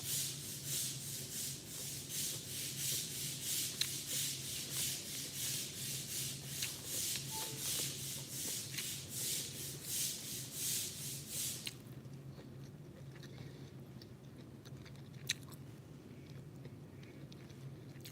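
Rhythmic rubbing or scraping strokes, about two or three a second, that stop abruptly about twelve seconds in, followed by a few faint clicks.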